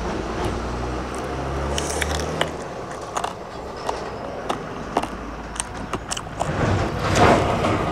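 Eating at a meal: a string of sharp clicks and scrapes of tableware with biting and chewing, after a low rumble in the first two seconds or so, and a louder noisy burst about seven seconds in.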